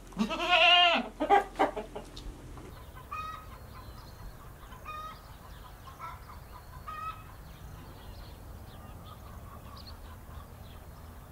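Farmyard animals calling: one loud, drawn-out, wavering call near the start, a few short calls just after it, then short calls about every two seconds.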